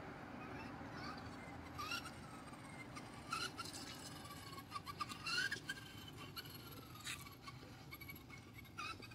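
Electric motor of a radio-controlled toy van whining in a few short rising bursts as the throttle is blipped, with longer falling whines as it slows.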